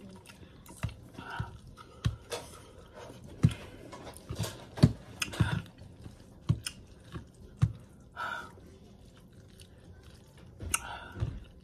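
A person chewing a mouthful of spicy instant noodles, with irregular wet mouth smacks and clicks.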